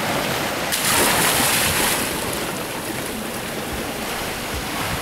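A person jumping off a boat into the sea: a hissing splash about a second in, fading over about a second, then the steady wash of sea water.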